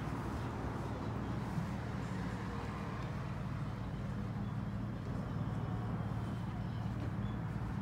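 A steady low mechanical hum with a dull rumble, unchanging throughout, with no distinct calls or knocks standing out.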